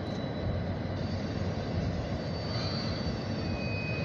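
Freight train cars rolling past on the rails: a steady rumble of wheels on track, with faint high-pitched squeals in the second half.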